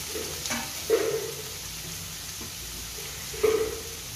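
Chopped onions sizzling in hot coconut oil in a nonstick pan, a low steady sizzle. A couple of short, louder knocks come about a second in and again near the end.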